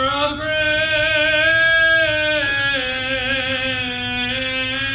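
A single voice chanting the closing words of the Gospel reading. It draws one syllable out into a long, slightly wavering held note that rises a little, then steps down to a lower pitch about two and a half seconds in.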